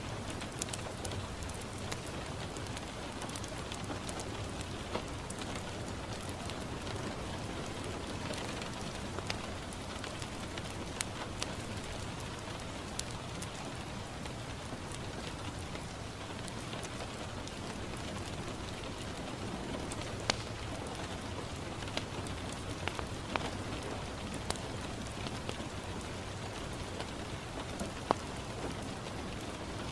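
Steady rain falling on a window. Scattered sharp crackles and pops from a wood fire in a fireplace are mixed in.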